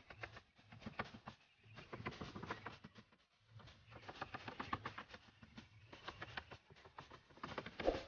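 Faint irregular tapping and clattering of wooden formwork battens being handled and fixed in place, with a louder knock near the end.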